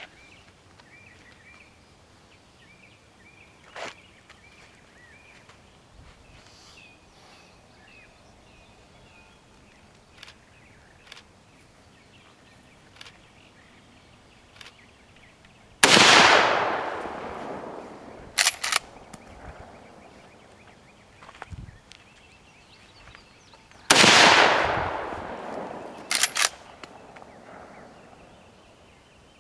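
Winchester Model 94 lever-action rifle in .30-30 fired twice, about eight seconds apart, each loud shot ringing out and fading over a couple of seconds. A couple of seconds after each shot comes a quick double metallic clack, the lever being worked to eject the case and chamber the next round.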